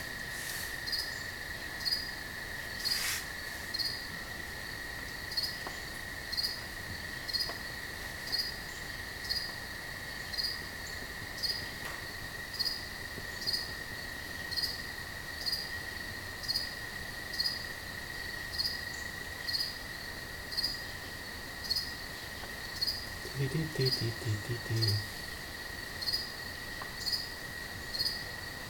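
A cricket chirping steadily, about one short chirp a second, over a constant high tone. There is a brief low hum near the end.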